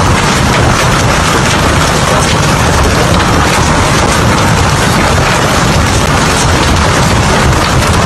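Heavy hailstorm: a dense, steady din of hailstones and rain pelting the ground, countless small impacts blurring together over a deep rumble.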